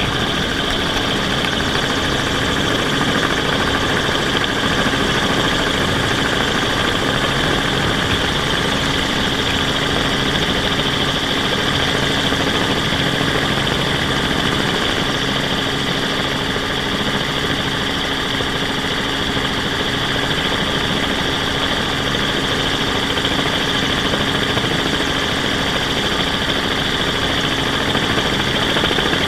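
Steady whine of a multirotor drone's motors and propellers, heard close up with no change in pitch.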